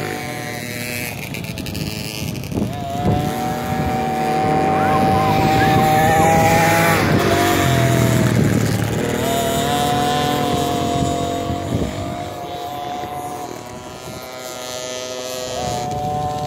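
Motocross dirt bikes, among them a KTM 50 SX two-stroke, revving hard as they ride, the engine note rising, holding high and dropping several times as the riders accelerate and back off. The sound eases about twelve seconds in and then builds again.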